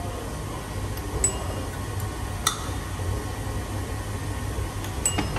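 Three light metallic clinks of small parts being set down on an aluminium cylinder head during reassembly, the middle one the loudest, over a steady low workshop hum.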